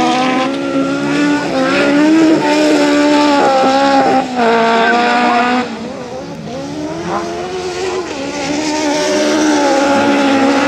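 Racing engines of lowered VW Beetle autocross cars revving hard on a dirt track. The pitch climbs and then drops again with each gear change. About halfway through the sound falls back, then another engine climbs again.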